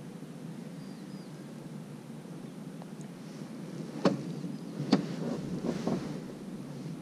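Steady low rumble of wind on the microphone, with two sharp clicks about four and five seconds in and a few softer knocks just after.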